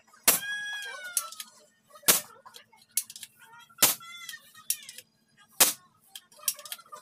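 Four sharp knocks at an even pace, one about every second and three-quarters, with high children's voices calling out between them.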